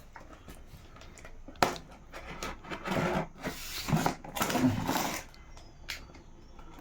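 Handling noises from a new laptop and its packaging: a sharp click about a second and a half in, then several short bursts of rustling and knocking.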